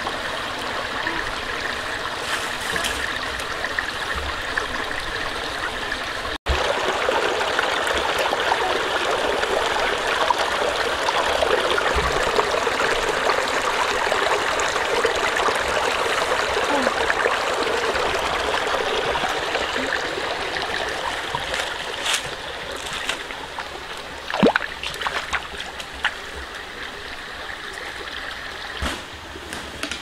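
Shallow rocky stream running and trickling over stones, a steady rush of water that grows quieter after about 20 seconds. It cuts out for an instant about six seconds in, and a few sharp knocks come near the end.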